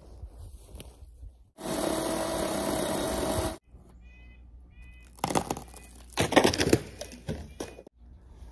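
DeWalt 20-volt cordless chainsaw with a 12-inch bar running steadily for about two seconds as it cuts through a small dead tree at its base, then stopping abruptly. A couple of seconds later comes a burst of cracking and snapping dead wood.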